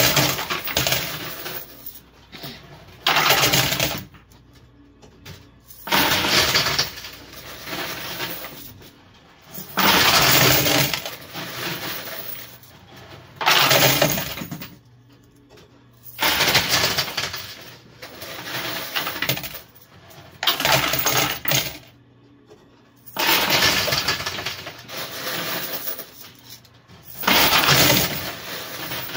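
Quarters clattering as handfuls are dropped into a coin pusher machine and land on the shelves of piled coins, in about ten separate bursts a few seconds apart, each fading out over a second or two.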